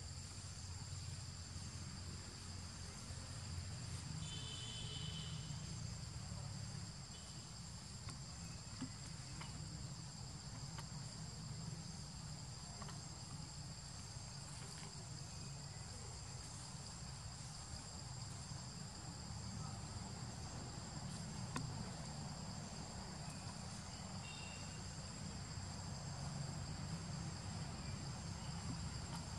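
Steady insect chorus in the forest canopy, a continuous high buzz at two pitches, over a low background rumble. Short high chirps break in about four seconds in and again near the end.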